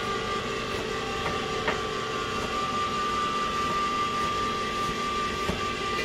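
Electric can opener running steadily as it cuts around a can, an even motor hum with a few faint clicks from the turning can; the motor cuts off near the end.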